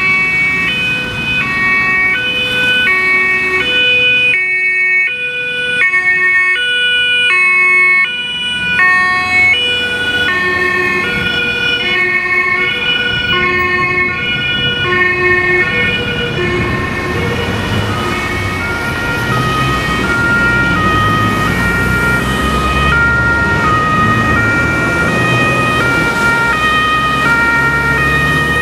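German two-tone emergency-vehicle sirens (Martinshorn), several sounding at once at different pitches, each stepping back and forth between a high and a low note. A low vehicle rumble grows from about halfway, and a steady high tone joins in.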